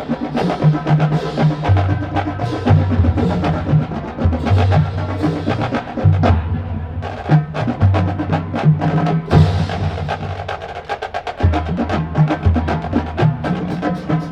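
Marching band drumline playing a fast cadence: sharp snare and stick clicks over low notes from pitched bass drums. The playing briefly thins out about ten seconds in, then picks up again.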